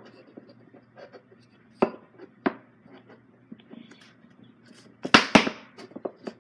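Wooden kit pieces knocking and clattering on a tabletop as they are handled and lined up. Two sharp knocks come about two seconds in, then a louder cluster of knocks about five seconds in.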